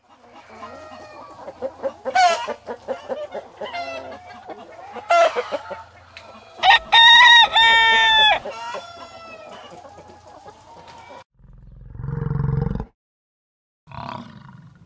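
Chickens clucking, with a rooster crowing loudly a little past halfway. After a break near the end come two short, low-pitched sounds of a different kind.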